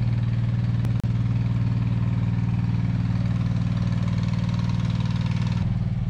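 Motor-driven water pump running steadily, a loud even engine hum with a deep low tone.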